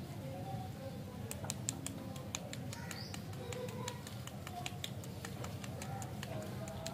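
Plastic lollipop wrapper crinkling between fingers: a run of sharp crackles and clicks starting about a second in and lasting a few seconds, over a steady low hum.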